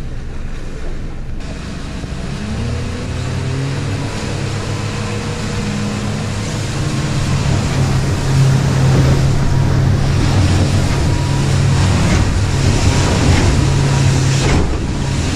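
Boat engine speeding up, its pitch climbing over the first several seconds, then running steadily at speed. Water rushes and wind blows underneath it.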